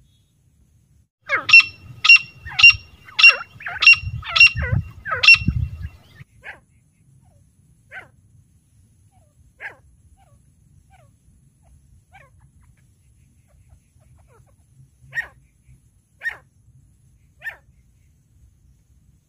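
Female grey francolin calling: a rapid series of about seven loud, shrill, repeated notes roughly half a second apart, then single fainter notes at irregular intervals.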